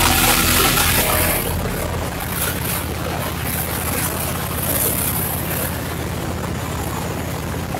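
Harley-Davidson Road King's V-twin engine running steadily while riding, with a high rushing noise that drops away about a second and a half in.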